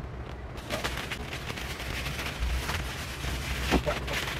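Plastic packaging crinkling and rustling as a courier bag and bubble wrap are handled and pulled away: a steady run of crackles with several sharper ones.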